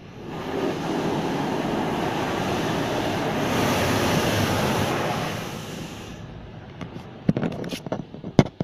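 Automatic car wash brushes and water sweeping over the car, heard from inside the cabin: a steady rushing swish that builds up just after the start and fades out around five to six seconds in. A few sharp knocks follow near the end.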